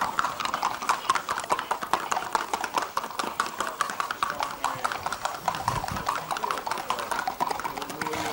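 Hooves of a Colombian paso horse under a rider, striking brick paving in a rapid, even clatter.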